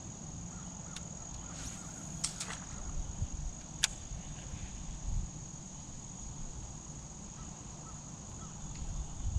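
Outdoor ambience: a steady high-pitched insect drone over a low rumble, with a few sharp clicks, the clearest about four seconds in.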